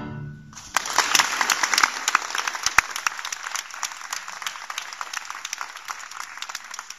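The final violin-and-piano chord dies away, and an audience breaks into applause about a second in. The clapping thins a little toward the end.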